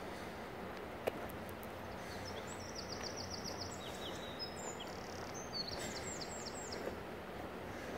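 A small songbird twice sings a fast, high trill of rapidly repeated notes over a steady outdoor background hiss. A single sharp click comes about a second in.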